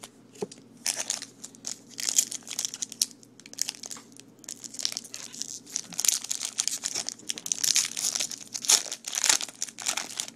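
Foil wrapper of a Topps baseball card pack crinkling and tearing as it is pulled open by hand, in an irregular run of sharp crackles.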